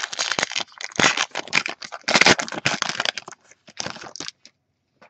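Wrapper of a trading-card pack being torn open and crumpled, a dense crinkling crackle that stops about four seconds in.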